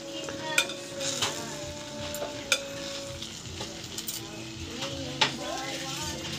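Noodles being stirred and tossed with chopsticks in a glass pot on the stove, a steady frying sizzle under a few sharp clicks of the chopsticks against the glass.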